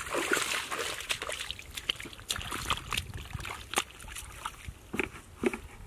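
Splashing and sloshing of feet wading through shallow muddy water. A burst of splashing comes in the first second, then scattered smaller splashes and wet squelches in the mud.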